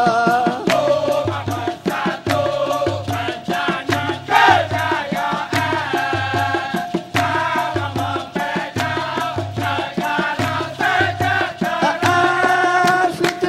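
Dikir barat chorus singing together in a chanting style, with sharp rhythmic hand clapping and percussion keeping a steady beat under the voices.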